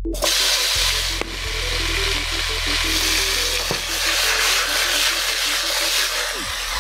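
Cubes of raw pork loin hitting hot oil in a nonstick wok and sizzling as they fry; the sizzle starts suddenly as the meat goes in and carries on while the pan is tossed.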